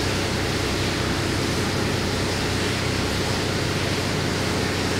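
Steady rushing noise with a low hum underneath, holding one level throughout: the running background of the processing room's equipment.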